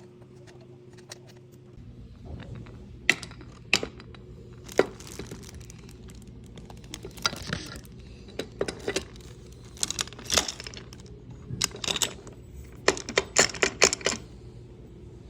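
A run of sharp clicks, clinks and knocks from hard parts being handled while the miter saw is assembled, sparse at first and coming in quick clusters in the second half, over a low steady hum.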